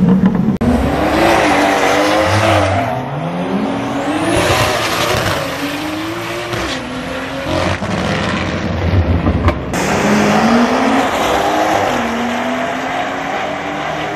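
BMW M4 engine at full throttle on a drag run, revving up through the gears: the pitch climbs and drops back at each shift, several times over. The sound is loud, and the owner-side guess is a single-turbo setup.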